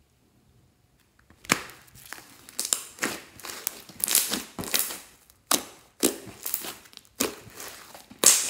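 Hands squeezing and kneading glossy slime, giving sharp, wet crackling pops in repeated bursts. The first second or so is near silent before the crackling starts.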